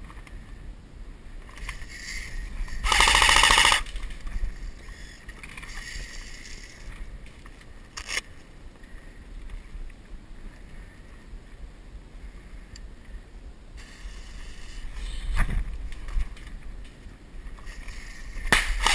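Airsoft gun firing one rapid full-auto burst lasting about a second, a few seconds in. Wind rumbles on the microphone throughout, with a single sharp click later on.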